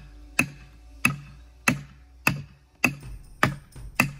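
A hammer driving wedges into a saw kerf in a large log, about seven sharp strikes at an even pace of roughly one every 0.6 s, each with a short ring. The wedges are being driven to force the cut quarter apart.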